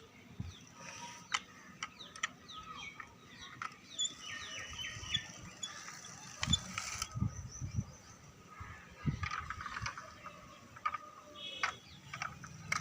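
Clicking and ratcheting of small plastic toy mechanisms being handled, with scattered sharp clicks and a few soft thumps.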